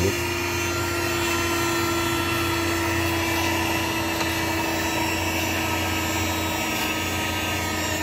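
xPower VC7 2-in-1 mini cordless vacuum cleaner running steadily, a hiss of air with a steady motor whine, its suction not very strong.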